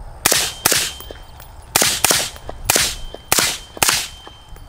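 Suppressed Bear Creek Arsenal AR-15 in 5.56 with an AAC SDN-6 suppressor firing seven shots at an uneven pace, several in quick pairs. Each shot is a sharp crack that trails off briefly.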